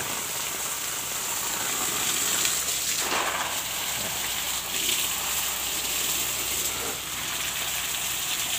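Water jetting from a garden hose and splashing onto the soil at the base of banana and young palm plants, a steady spattering.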